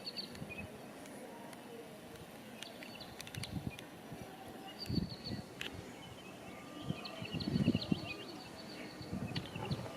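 Small birds singing in quick, high-pitched chirping trills, several times over, with low irregular bumps and rumbles underneath.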